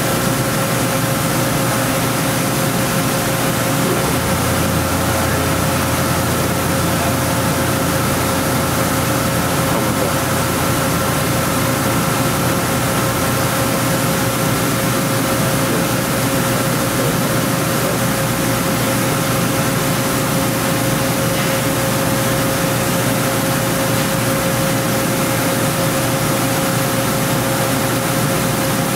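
2006 OKK VP600 five-axis vertical machining center running under power without cutting, its axes repositioning: a steady hum and hiss with two steady whining tones, the higher one fading out about two-thirds of the way through. A deeper hum joins for a few seconds early on.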